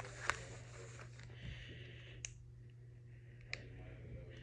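Beats over-ear headphones handled in the hand: three sharp little clicks and faint rustling of the earcups against the fingers, over a steady low hum.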